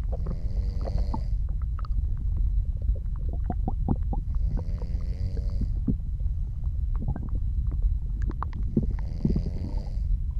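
Soft snoring: three drawn, wavering snore breaths about four and a half seconds apart, over continuous stomach and bowel gurgling full of small pops and clicks.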